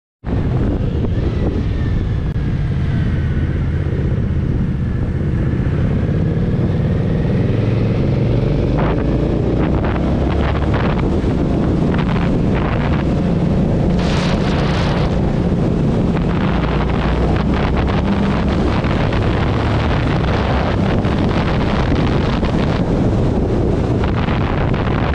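Indian Scout Sixty V-twin motorcycle engine running on the road, heard with heavy wind noise on the microphone. The engine pitch rises and falls gently in the first several seconds, and the sound drops out for an instant at the very start.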